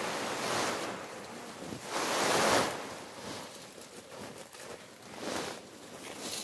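Canvas harvest tarp being pulled and dragged over the ground under coffee trees, rustling in loud swells of noise. The biggest swell comes about two seconds in.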